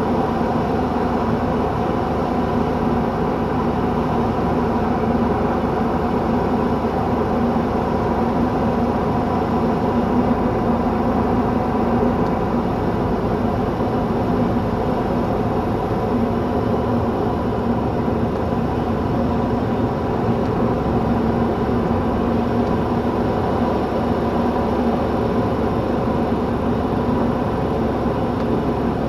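Steady engine and propeller drone with airflow noise, heard from inside the cockpit of an Esqual VM-1 (Arion Lightning) light sport plane descending on final approach.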